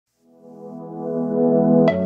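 Background music: a sustained chord fades in and swells, and a sharp new musical phrase with struck notes starts near the end.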